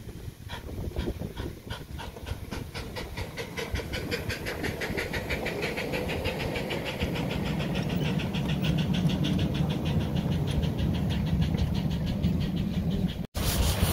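Miniature steam locomotive pulling away with its train, exhaust chuffing in beats that quicken from about two a second to a rapid patter as it gathers speed, with the low rumble of the carriages rolling past close by.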